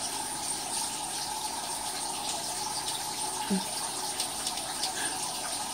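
Aquarium filter running in a turtle tank: a steady rush of moving water.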